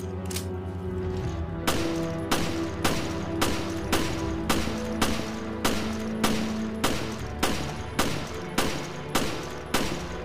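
Colt Government pistol firing about fifteen shots in steady succession, a little under two a second, starting about two seconds in. Steady background music plays underneath.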